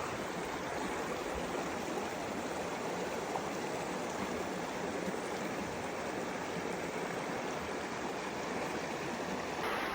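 River water rushing steadily, a continuous even rush of flowing water.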